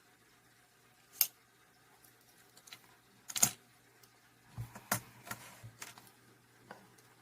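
Scattered sharp clicks and taps of a Swiss Army knife being handled: one about a second in, the loudest a couple of seconds later, then a quick cluster around five seconds in.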